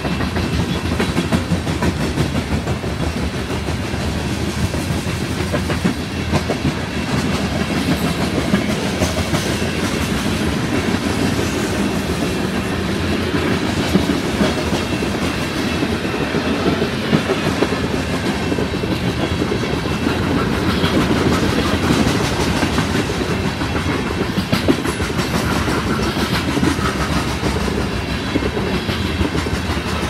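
Loaded coal train cars rolling past: a steady rumble of steel wheels on rail with a continuous clickety-clack of wheels over the rail joints.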